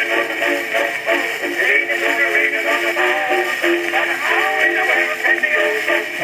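A male vocal duet with a dance band, reproduced from a Columbia 78 rpm shellac record on an acoustic wind-up phonograph with a loud steel needle. The sound is thin and horn-like, with no bass.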